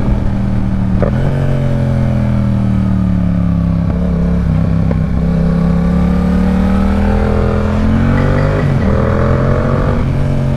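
Yamaha R7's parallel-twin engine running at speed, its note sinking slowly and then climbing again, with two brief breaks about a second in and near nine seconds. Heavy wind noise on the helmet microphone runs under it.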